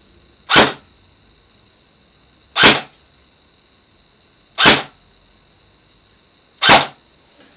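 Specna Arms SA-E04 Edge airsoft electric rifle with an Orion gearbox firing single shots through a chronograph, four shots about two seconds apart. This is a muzzle-velocity test with 0.20 g BBs.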